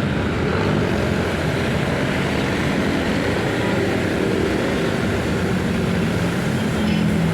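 Pressure washer running steadily, its motor and pump humming under a continuous spray noise.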